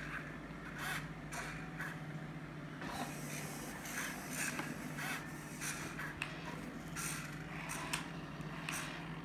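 Small servo motors in an animatronic android head whirring in short, irregular spurts as its eyes, lips and head move, with a few light clicks over a steady low hum.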